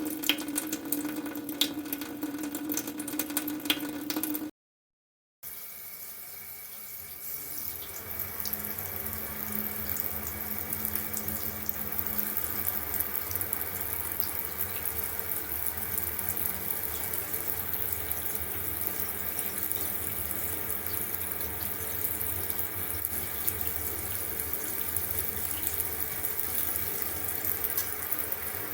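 Water running steadily from a tap into a sink. It breaks off into a second of dead silence about four and a half seconds in, then a different steady stream of running water picks up again.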